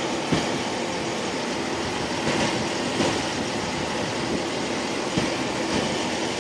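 Steady rush of wind and rain at an open truck-cab window, over a semi truck's engine idling.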